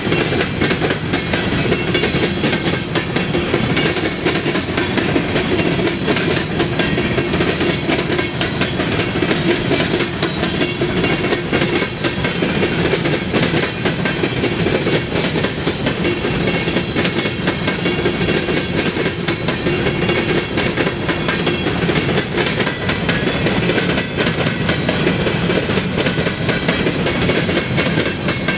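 Empty open-top coal cars of a freight train rolling past. Their steel wheels make a steady rumble and clatter on the rails, with a dense clickety-clack that does not let up.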